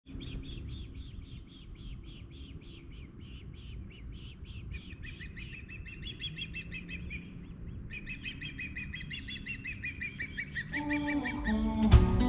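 Osprey calling a long series of short, rapid whistled chirps, with a second, lower series overlapping from about five seconds in. Acoustic guitar music fades in near the end.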